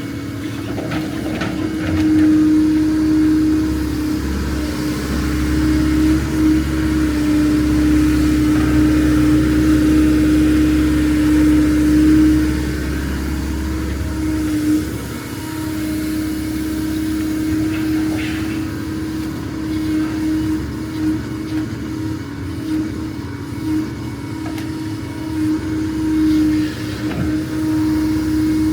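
A heavy-equipment diesel engine running steadily under load, with a constant pitched hum over it and a deeper rumble through the first half that eases about halfway through.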